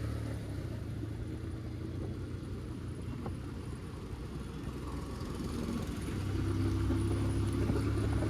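TVS Apache RTR 180's single-cylinder engine running under way on the road, a steady low hum with road noise that grows louder about six seconds in.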